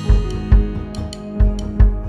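Background music: plucked-string, guitar-like tune over a steady drum beat.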